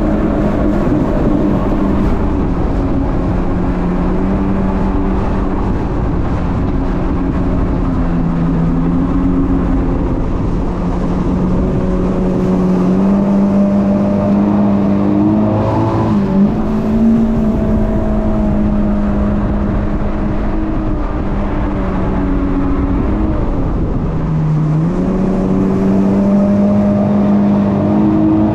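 Jet ski engine running at speed, a steady drone that dips in pitch a few times and climbs back as the throttle is eased and opened again.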